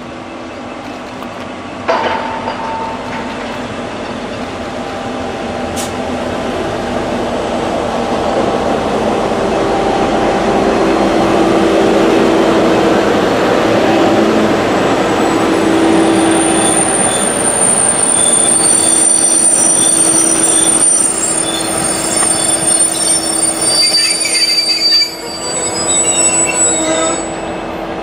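V/Line diesel locomotive and its passenger carriages passing, the train growing steadily louder as it approaches, with a sharp clank about two seconds in. As the carriages roll by in the second half, the wheels squeal with high, steady tones.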